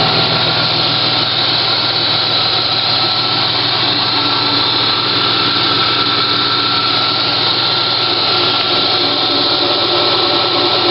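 1994 Chevy S10 Blazer's 4.3-litre V6 engine idling steadily, heard close up under the open hood, with a constant hum and hiss.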